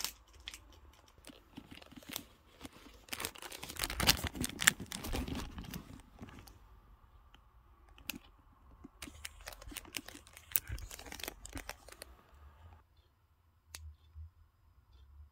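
Packaging being handled during a handbag unboxing: paper rustling and crinkling, with small clicks and taps, in bursts. Busiest about four to five seconds in, dying down to a few faint taps near the end.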